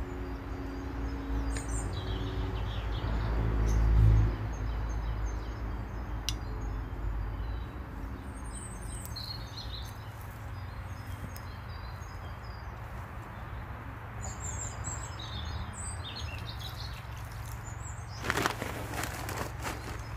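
Small birds chirping and calling on and off throughout, over a low droning hum that swells to its loudest about four seconds in and then fades. A short burst of rustling or scraping near the end.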